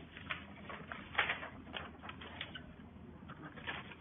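Sheets of printed paper rustling and sliding as they are leafed through and shuffled on a tabletop, in short scattered rustles and taps, the loudest about a second in.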